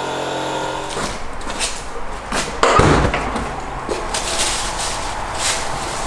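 A steady hum that stops about a second in, then rustling and knocking, with a heavy car door thud near the three-second mark.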